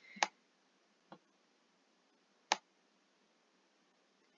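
Three short computer mouse clicks, the loudest about two and a half seconds in, over faint background hiss.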